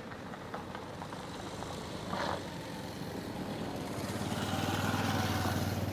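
An engine running steadily with a low hum, growing louder from about four seconds in.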